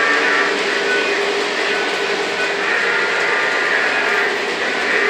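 Lionel O gauge model trains running on three-rail track: a steady mechanical rumble of wheels and motors with a faint whine, easing slightly in the middle and swelling again near the end.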